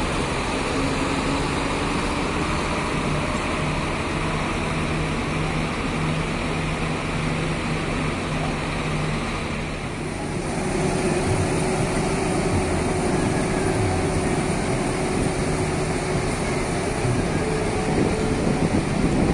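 Large diesel coach engines running steadily as buses manoeuvre slowly. About ten seconds in, the sound switches abruptly to another bus with a different steady engine hum.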